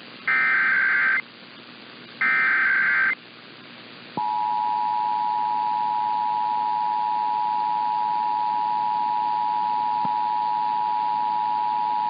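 Emergency Alert System monthly test broadcast by KSTP-AM, heard through an online radio receiver over AM hiss. Two SAME header data bursts of about a second each come first, about two seconds apart. Then, about four seconds in, the two-tone EAS attention signal (853 and 960 Hz) starts and holds steady.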